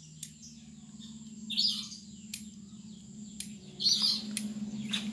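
Bonsai scissors snipping twigs and leaves: a run of short, sharp snips about once a second, with two louder cuts about one and a half and four seconds in. A steady low hum runs beneath.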